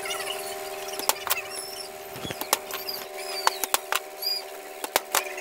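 Scattered sharp clicks and taps of hand work on a ceiling fan's metal parts during a repair of its worn shaft, over a steady hum.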